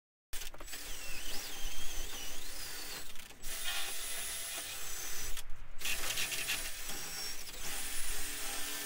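Cordless DeWalt drill running in three long bursts with short breaks, scrubbing tar underseal and grime off a rusty brake line union.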